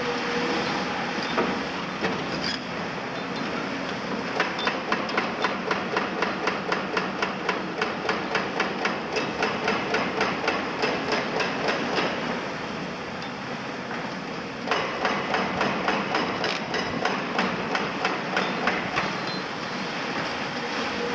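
Hydraulic breaker on an excavator hammering concrete: a rapid, even run of blows about four a second, starting a few seconds in, stopping about twelve seconds in and resuming a few seconds later, over the steady running of excavator engines.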